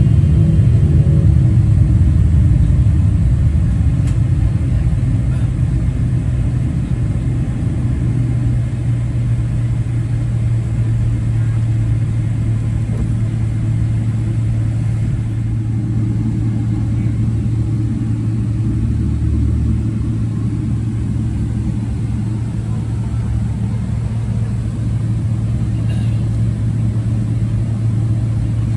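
Cabin noise inside a taxiing Boeing 777-300ER: a steady low engine hum over a low rumble, easing slightly in level over the first several seconds.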